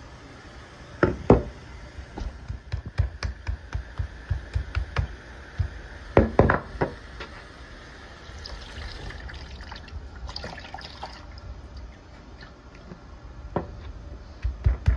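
Meat mallet pounding raw chicken on a plastic cutting board to tenderize it. A run of knocks, about two or three a second, with the hardest blows about a second in and again around six seconds in. There is a lull in the middle, and the pounding picks up again near the end.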